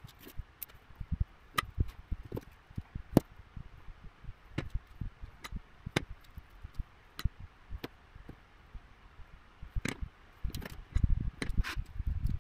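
Scattered light clicks and taps of metal tweezers and a soldering iron tip against a bare circuit board while small surface-mount parts are hand-soldered. Near the end come a run of low knocks and rubbing as the board is shifted and turned on the desk.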